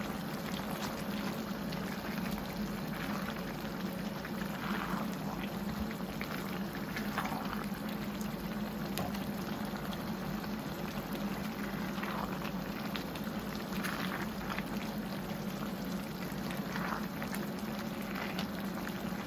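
Pot of cabbage stew boiling on the heat: a steady bubbling hiss with scattered louder pops every second or two, over a steady low hum.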